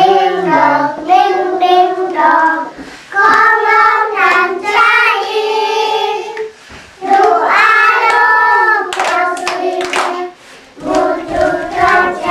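A group of young children singing a song together, breaking off briefly twice, with a few sharp hand claps about nine to ten seconds in.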